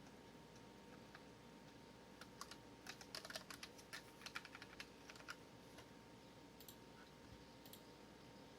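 Typing on a Dareu EK820 mechanical keyboard with red linear switches: a quick run of keystrokes from about two seconds in to the middle, with scattered single key presses before and after.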